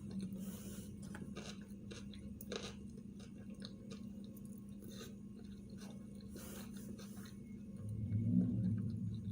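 A person chewing sushi rolls close to the microphone, with scattered soft mouth clicks over a steady low hum. A louder low sound builds near the end.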